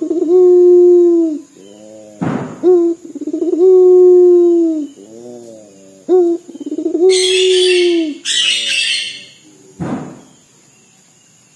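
A puter dove (ringneck-type collared dove) cooing repeatedly in a crying-like voice. Each call is a few short stuttering notes ending in one long held low coo, and there are three such calls. A harsh hissing noise comes twice, about seven and eight seconds in.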